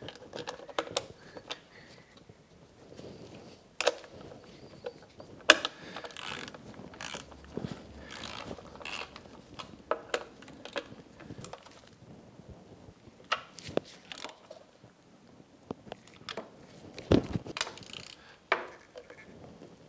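Small hand ratchet with a socket clicking in short, irregular runs as bolts on a plastic spark plug cover are snugged down, with a few louder sharp clicks along the way.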